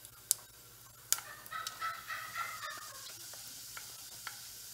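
Cumin seeds frying in hot oil in a saucepan: sharp pops and small crackles, with a wavering sizzle rising about a second in as ground chili and turmeric are poured into the oil.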